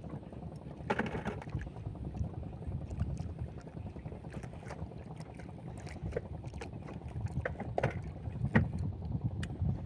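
Steady wind and water noise on a small boat at sea, with scattered sharp clicks and knocks, the loudest about a second in and near the end.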